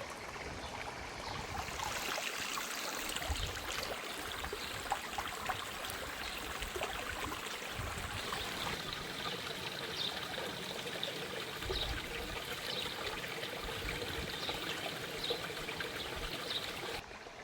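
Mountain creek running over stones: a steady rush and trickle of water, with small splashes and gurgles in it.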